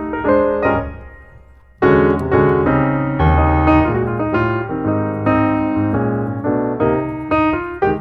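Background piano music. The notes die away about a second in, and the music starts again just under two seconds in.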